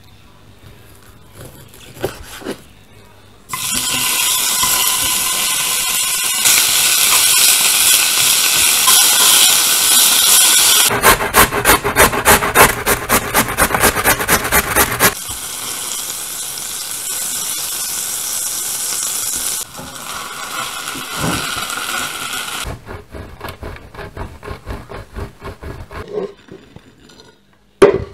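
Kitchen food-prep sounds. Near the start come a few strokes of a knife through bacon on a wooden board. Two long stretches of steady frying sizzle follow. In between, food is rubbed quickly on a metal box grater, about four or five strokes a second. Near the end, cheese is scraped on a flat metal grater in quick strokes.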